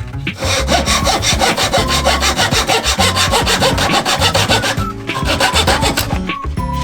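Hand saw cutting wood with quick, even back-and-forth strokes that stop about five seconds in.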